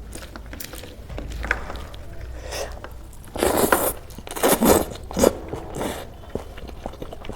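Close-miked eating: a person bites into crunchy food and chews, with a few loud crunches about halfway through.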